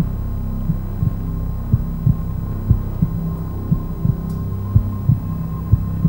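Suspense heartbeat sound effect: a double thump about once a second over a low steady drone.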